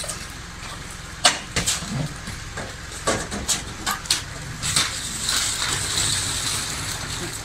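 Ambulance stretcher being unloaded: a series of sharp metal knocks and clanks as the frame is pulled out and its legs drop, over a steady low rumble. In the last few seconds a hissing rattle of the wheels rolling over the pavement.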